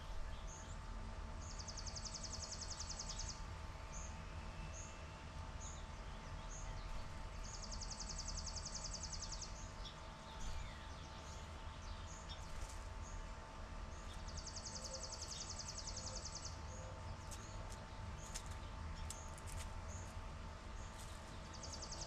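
Chipping sparrow singing its dry, very fast trill on one high pitch, each song about two seconds long, three times with a fourth starting near the end. Short high chirps from other birds come in between.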